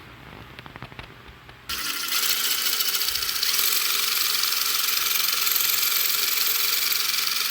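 Light rattling and clicks, then a power drill starts abruptly about two seconds in and runs steadily, boring a bolt hole through a sheet-metal mounting plate.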